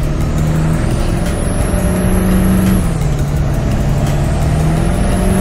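Turbocharged 7.3 IDI V8 diesel of a 1986 Ford F250 pulling under acceleration, heard from inside the cab. The BorgWarner 369 turbo's whistle rises with it. Engine and whistle drop together a little under three seconds in, as at an upshift, then climb again.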